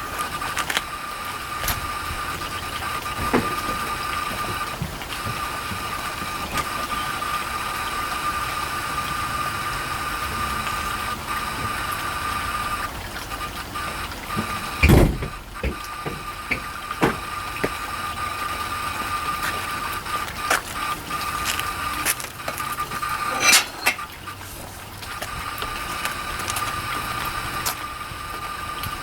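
Hard drive spinning with worn-out spindle bearings, giving a steady high whine that drops out twice, with scattered clicks and one loud thump about halfway through. The bearings are too far gone.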